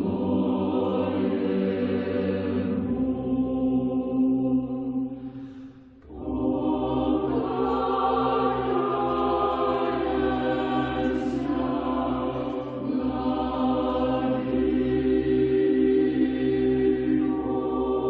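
Choir singing a slow chant in long held chords, fading briefly about six seconds in before the next phrase begins.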